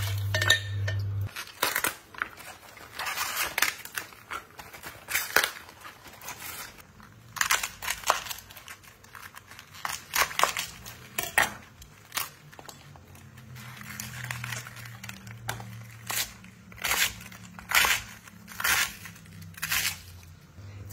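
Chef's knife slicing through crisp savoy cabbage leaves on a wooden chopping board: a crunchy, crackling cut with each stroke, coming irregularly at one or two a second. It opens with about a second of a pan sizzling over a steady hum, which cuts off suddenly.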